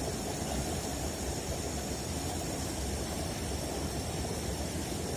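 Steady rushing background noise with a faint steady high-pitched whine on top, and no distinct event.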